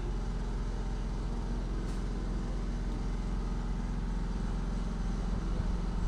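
Engine of heavy road-construction machinery at an asphalt-laying job, running steadily at a constant pitch with a low, even hum.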